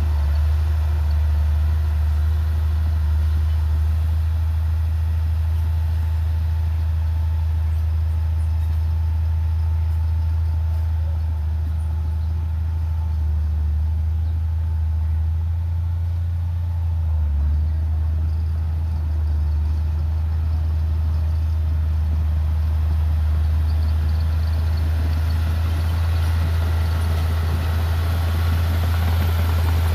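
Heavy diesel engine of earthmoving machinery running steadily, a constant deep drone.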